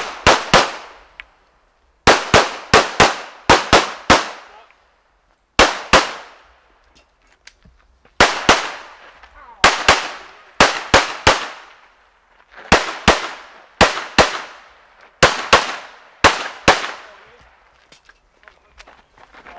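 Smith & Wesson M&P9 Pro 9mm pistol firing fast pairs and short strings of shots, each shot ringing out with a short echo, broken by pauses of a second or two while the shooter moves between shooting positions.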